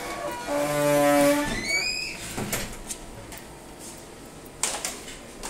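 Plastic binding-post caps on an amplifier's speaker terminals being twisted down onto speaker wire: a held squeak about a second in that then rises in pitch, followed by a few light clicks near the end.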